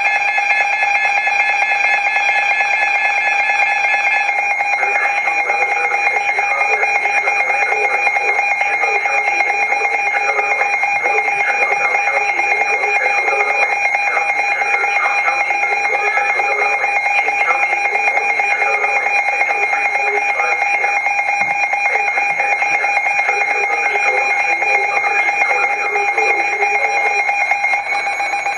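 Emergency Alert System attention signal: the steady two-tone EAS alarm is held without a break, with a rougher texture joining it about four seconds in, and it cuts off near the end.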